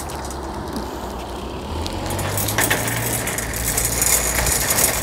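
Metal shopping trolley being pushed along, its wheels rumbling steadily over the ground and the wire basket clinking and rattling.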